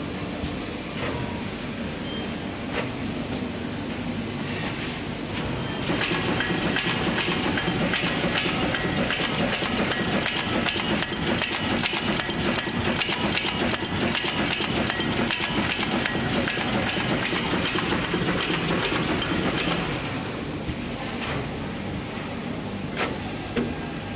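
Automatic radial component insertion machine running, a steady mechanical clatter that grows louder and busier from about six seconds in, with rapid, even clicking of the insertion cycles, then eases back near the end.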